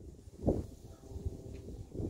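Wind buffeting the microphone in low, uneven gusts, with a single thump about half a second in and a faint steady hum after it.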